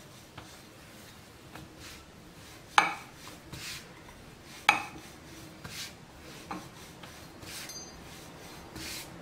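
Stainless steel rolling pin rolling out a flour-dusted ball of samosa dough on a stone chapati board: soft rubbing strokes with a few sharp clicks of metal on stone, the loudest about three and about five seconds in.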